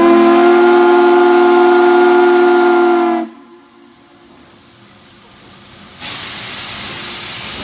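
Southern Pacific 4449 steam locomotive's whistle blowing one long blast of several notes at once, cutting off a little over three seconds in. About six seconds in, a loud hiss starts up from the locomotive.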